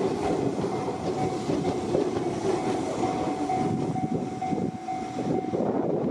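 Fukushima Kotsu Iizaka Line electric train passing over a level crossing, wheels running on the rails, while the crossing's warning bell rings in a steady repeating pattern.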